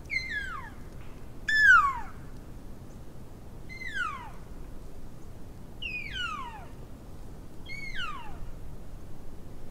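Five elk cow calls, each a short mew that starts high and drops steeply in pitch, about every two seconds. The second is the loudest.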